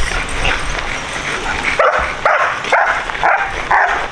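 A dog barking in a steady run of about two barks a second, starting about two seconds in.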